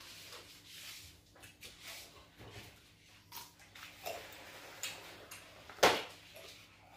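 Quiet table noises of people eating by hand, with faint scattered clicks and rustles. About six seconds in, a sheet of paper towel is torn off the roll in one short, sharp rip.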